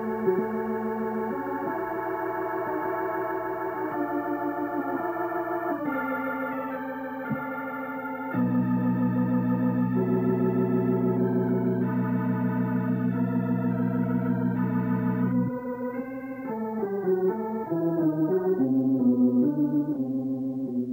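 Organ music: sustained chords with a slight wavering vibrato. About a third of the way in, a louder low chord is held for several seconds, then the notes move again near the end.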